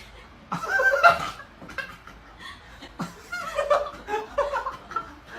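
A person laughing in short, broken bursts of chuckling.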